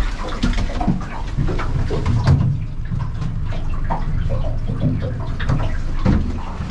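Water sloshing against a metal boat hull over a steady low rumble, with a few scattered knocks and clunks.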